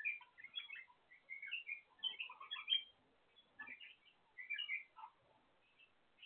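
White-eared bulbuls chirping in quick bursts of short notes, each burst under a second long, separated by brief pauses.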